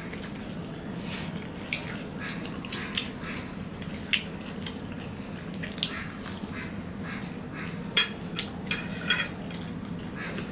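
Eating by hand: fried rice and fried chicken being chewed, with short wet mouth smacks and clicks at irregular intervals and a cluster of them about eight seconds in. A steady low hum runs underneath.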